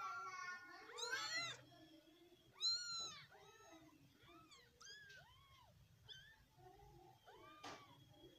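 Cats mewing: a run of short, high-pitched mews that each rise and fall in pitch, coming in quick succession, loudest in the first three seconds.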